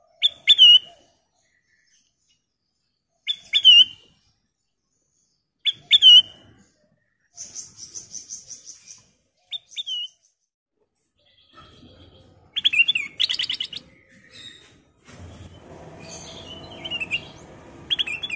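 Ruby-throated bulbul (kutilang emas) calling: short, sharp notes repeated every two to three seconds, then a quick high trill and a faster run of notes. A low background rumble comes in over the last few seconds.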